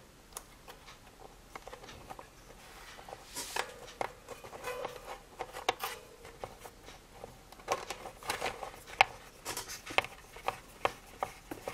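Small screwdriver turning a screw into a thin metal bracket, with faint, irregular clicks and metal-on-metal scraping, a little busier in the second half.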